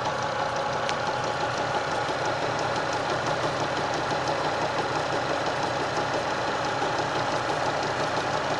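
Car engine idling steadily with a light, rapid tapping knock running through it, which the owner suspects comes from a worn belt tensioner pulley that has a little play in it.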